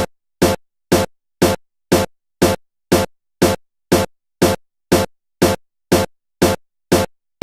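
Electronic background music: a single drum-machine hit repeating evenly about twice a second, with silence between the hits.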